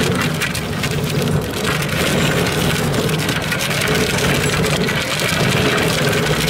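Golf cart engine running steadily while it tows a toy pedal car, with the crackle of tyres rolling over a gravel drive.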